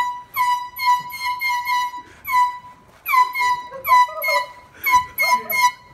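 Handheld air horn blown in rapid short blasts, the same shrill note again and again, about two or three a second with brief gaps.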